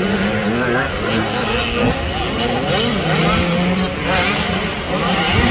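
Several motocross bikes racing, their engines revving up and down, with pitches rising and falling over one another.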